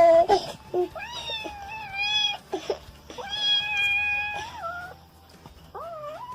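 A pet crying in three long, high, wavering calls.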